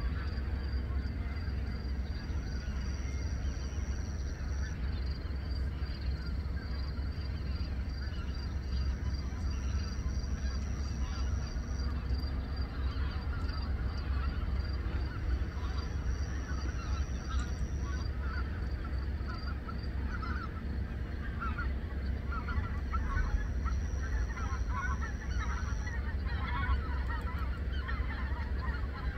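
A large flock of migrating wild geese calling as it flies over. The calls become denser and louder about two-thirds of the way through, over a steady low rumble.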